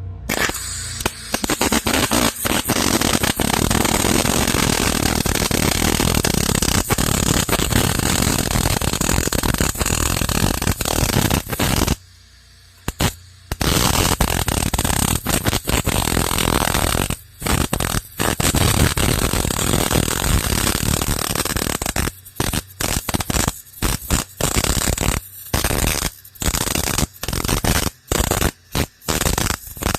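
Electric arc welding on a steel mower-deck bracket: a loud, steady crackle that stops for a moment about halfway through, then starts and stops again and again in short runs near the end. The bracket steel is rusty and poorly cleaned, which by the welder's account makes for a lot of spark.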